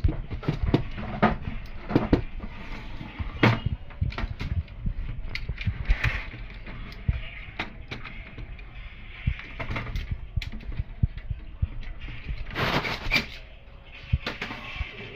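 Irregular plastic clicks, knocks and rattles as the pickup assembly of an HP LaserJet M1005 laser printer is handled and pressed into place inside the opened printer.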